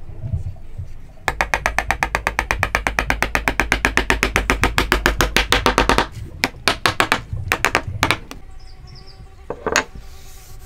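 Claw hammer tapping a wooden key piece down into a wooden corner joint: a rapid, very even run of light blows, then several single, spaced blows, and one last knock near the end.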